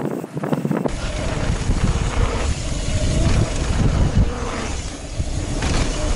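Mountain bike descending a dirt trail, heard from a helmet camera: tyres rolling over dirt, the bike rattling, and wind on the microphone. About a second in, the sound changes abruptly from sharp rattles to a denser, deeper rumble.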